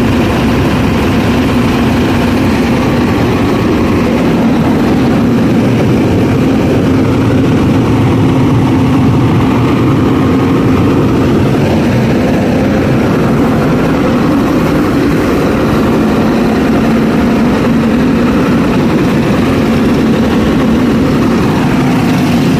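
Scania R580 truck's V8 diesel engine running steadily, a loud even drone with no change in revs.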